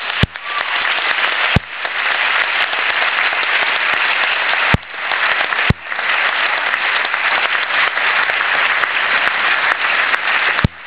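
Audience applauding: dense, steady clapping, with a few sharp knocks close to the microphone.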